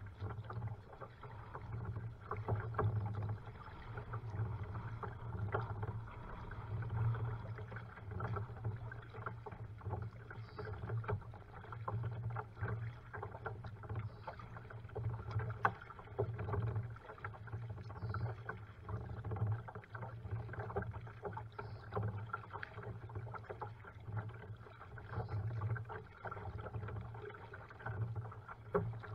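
A kayak being paddled on a river: water splashing and lapping at the hull in a steady rhythm of paddle strokes about every one and a half to two seconds, with light clicks and drips between them.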